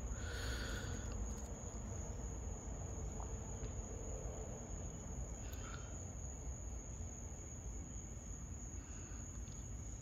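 A steady high-pitched whine, unchanging throughout, over a low background rumble, with a faint brief rustle about half a second in and a soft tick about five and a half seconds in.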